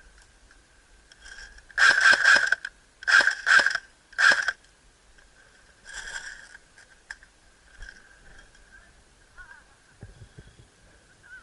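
Airsoft guns firing short bursts of rapid shots: a burst about two seconds in, two more shortly after, and a weaker one near six seconds.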